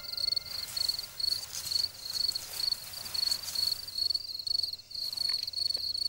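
Night insects of the Amazon rainforest chirping in a steady high-pitched trill that pulses several times a second.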